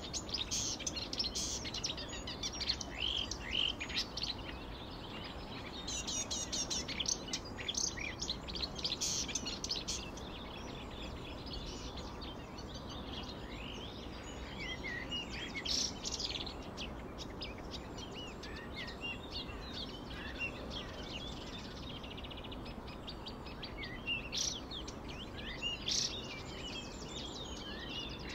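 A chorus of many small birds chirping and trilling, their calls overlapping throughout, over steady low background noise.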